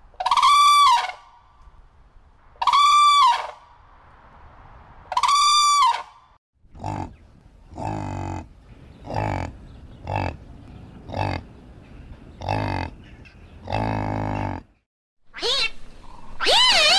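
A red-crowned crane gives three loud calls, each about a second long. Then a yak grunts in a run of short, low grunts about a second apart, and near the end an Asian palm civet calls twice, its pitch gliding up and down.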